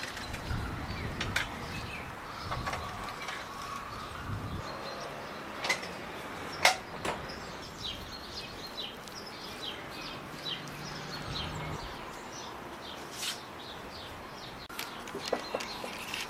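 Small birds chirping in short calls while thin pastry dough is rolled and pressed by hand on a wooden table, with a few sharp taps, the loudest about six and a half seconds in.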